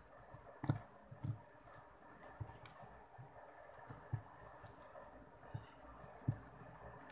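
Faint, scattered clicks and light taps from fingers stretching sticky homemade glue-and-detergent slime and pulling it off a tabletop, with a handful of louder taps spread through.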